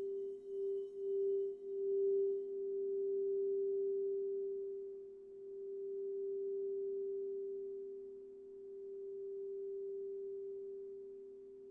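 Crystal singing bowl ringing with a steady pure hum, a lower second tone beneath it. The bowl is sung by circling a mallet around its rim, so at first the volume pulses about twice a second, then it swells and fades in slow waves as it rings on.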